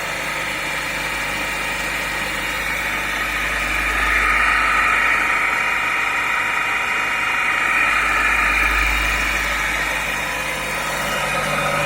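Homemade wood lathe running at about 1000 rpm with an oak blank spinning in it: a steady motor hum and whine that swells louder about four seconds in and again around nine seconds.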